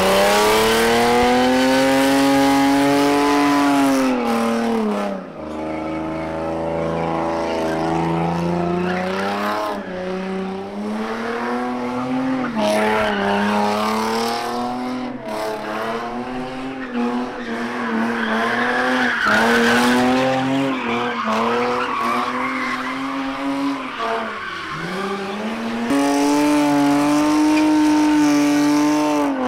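Car engine held at high revs during burnouts and donuts, its pitch rising and falling as the throttle is worked, with the tyres squealing as they spin on the pavement.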